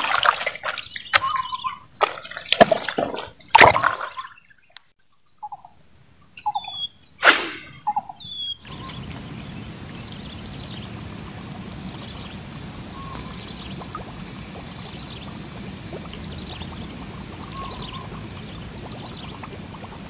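Outdoor lakeside sounds: a few sharp knocks and short chirping calls, then a splash on the water about seven seconds in. After that a steady hiss with faint, evenly spaced ticks.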